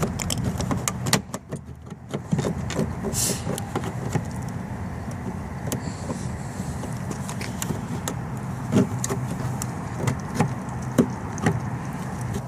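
Scattered clicks and knocks of a screwdriver prying and tugging at a car's exterior door handle to free its tight retaining clips, over a steady low hum.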